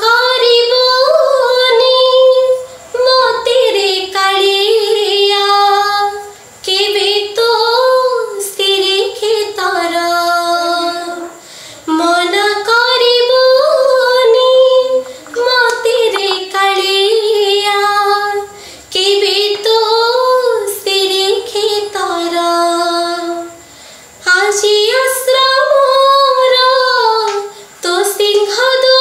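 A woman singing a devotional bhajan solo and unaccompanied, in long held, ornamented phrases with short pauses for breath between them.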